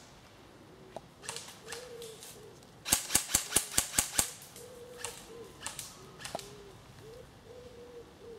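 Airsoft rifle (an M4-style replica) firing a quick string of about eight sharp shots over a second and a half, starting about three seconds in.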